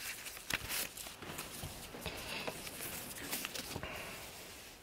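A hushed congregation: scattered soft knocks, taps and rustles of people moving about during a pause for prayer.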